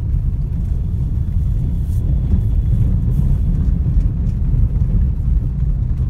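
Steady low rumble of a car driving along, heard inside the cabin: engine and tyre noise.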